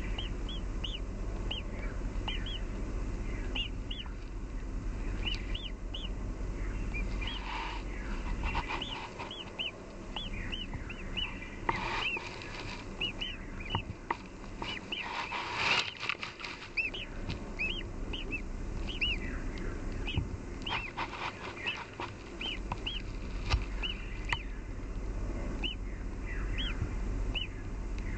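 Great tit nestlings in the nest box giving thin, high begging chirps over and over. The calling grows denser and louder midway, with scrabbling in the nest as the chicks gape, then settles back to a steady run of chirps.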